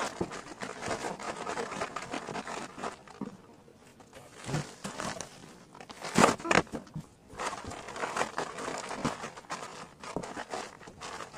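Plastic packaging crinkling and rustling as goods are handled and packed into a cardboard box, with a couple of sharper knocks a little past halfway.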